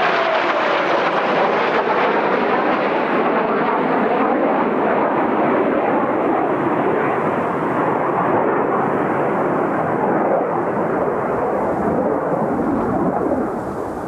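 Kawasaki T-4 jet trainer engines rumbling loudly as the aircraft fly away after passing, the sound gradually duller and dropping somewhat near the end.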